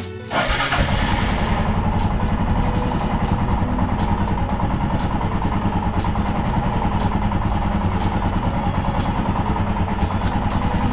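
2022 Royal Enfield Himalayan's single-cylinder engine running steadily with a fast, even pulse. It comes in suddenly just after the start, with music underneath.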